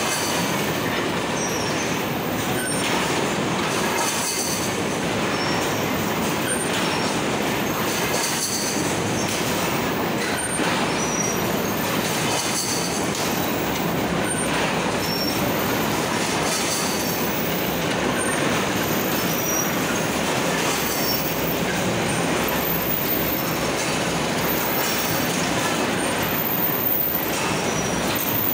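Fish-net netting machine running: a loud, steady mechanical clatter, with short high-pitched metallic squeaks scattered through it.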